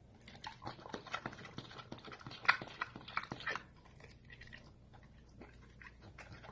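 A pet animal making quiet clicking, chewing-like noises, with a few brief high squeaks in the middle.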